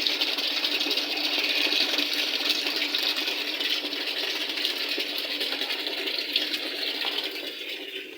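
Water rushing and splashing inside a Panasonic top-load washing machine's tub, steady and then fading away near the end.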